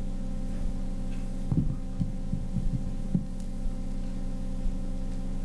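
Steady low electrical hum, with a cluster of soft low thumps about one and a half to three seconds in.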